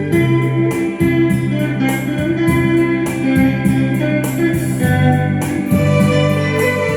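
Instrumental music: a lead guitar playing a slow melody over keyboard backing with a steady beat.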